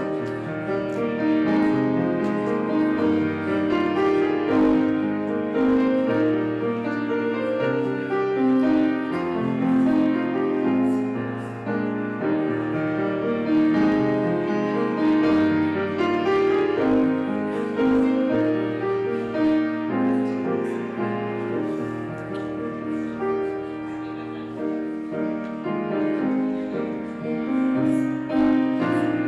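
Piano music with slow chords, each held for a second or two.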